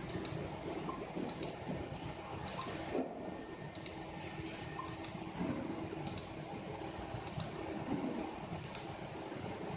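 Scattered light clicks, roughly one a second and irregular, over a steady background hum with a faint steady tone.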